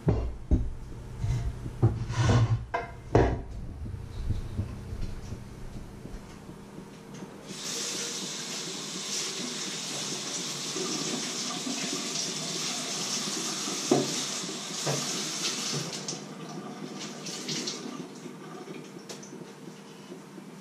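Several knocks and clatters of kitchenware in the first few seconds, then a kitchen tap running into a stainless-steel sink for about eight seconds while a wooden cutting board is rinsed under it, with a couple of sharp knocks as it is handled.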